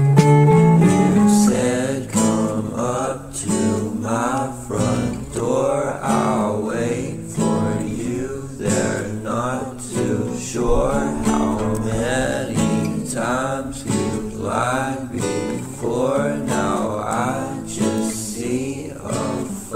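Background music: a song led by guitar, with repeating sliding melodic figures.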